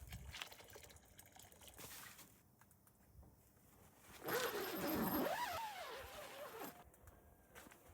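An animal's call, starting a little past halfway and lasting about two seconds, its pitch wavering up and down.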